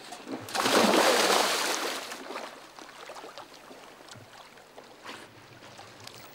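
A loud splash as a diver goes over the side of a small boat into the sea, lasting about a second and a half and fading into softer lapping and small splashes of water.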